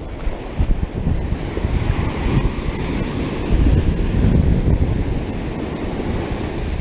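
Ocean surf breaking and washing up the sand, with wind buffeting the microphone. The wash swells louder about halfway through.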